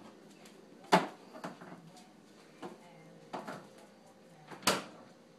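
Hard household objects knocking and clattering as they are handled: about five separate sharp knocks, the loudest about a second in and another near the end.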